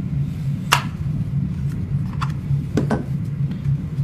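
A few sharp clicks and light knocks from a doorbell unit and its packaging being handled, over a steady low hum.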